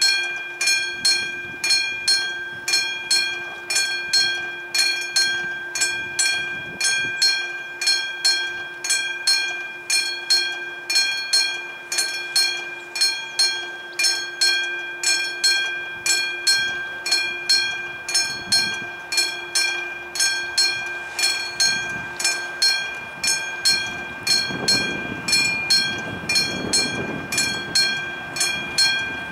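Level-crossing warning bell, the classic striking bell of an SSSR-type crossing signal, ringing in an even beat of about two strikes a second to warn that a train is coming. A low rumble swells and fades near the end.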